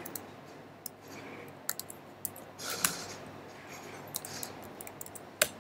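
Sparse, irregular computer keyboard keystrokes: single sharp clicks spaced roughly half a second to a second apart, over a faint steady room hiss.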